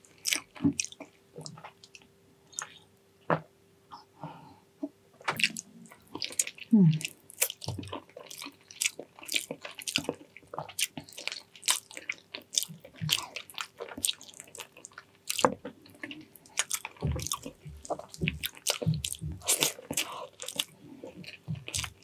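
Close-miked eating of soft, tender braised pig's trotters with rice: irregular wet chewing, biting and lip-smacking clicks, with a faint steady hum underneath.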